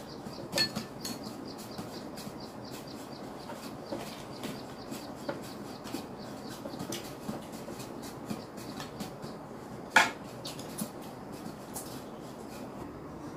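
Dishes and utensils clinking: scattered light clicks and knocks, with one sharp clink about ten seconds in.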